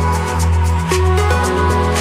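Bright electronic dance music with a steady beat and held bass notes.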